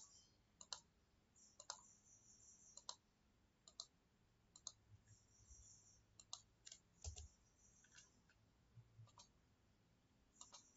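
Faint computer mouse clicks, about a dozen single sharp clicks at irregular intervals, as objects are picked one after another on screen.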